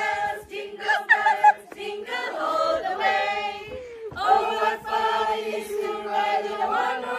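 A mixed group of men and women singing together in unison from song sheets, like an informal choir.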